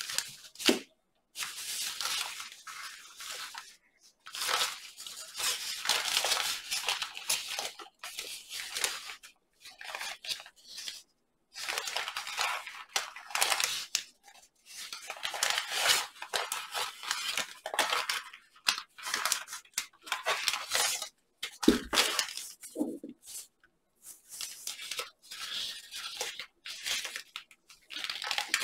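A large origami sheet rustling and crinkling as hands fold it, press flaps flat and collapse creases, in bursts of a second or more with brief pauses. A single thump about 22 seconds in.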